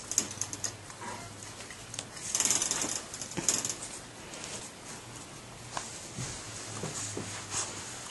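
Wire crate clicking and rattling as cats inside play and paw at the bars, with a couple of stretches of rustling on the bedding.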